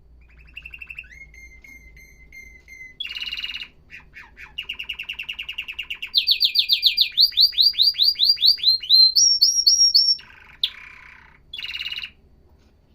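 Domestic canary singing one long song made of rapid trills: a thin trill, a short rasping buzz about three seconds in, then runs of fast repeated notes that turn into quick falling sweeps, loudest from about six to ten seconds in, and two more short rasping bursts near the end.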